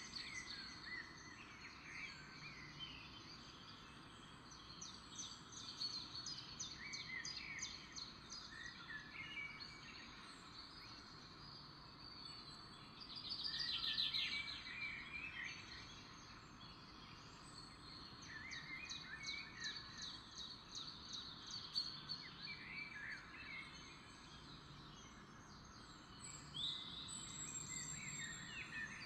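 Small birds chirping and trilling over a faint steady hiss, with a louder spell of chirping about halfway through.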